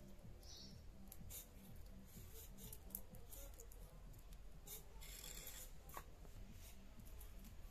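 Faint papery crackling and rubbing of dry garlic skins being peeled off the cloves by hand, in scattered small rustles with one longer rustle and a sharp click near the end.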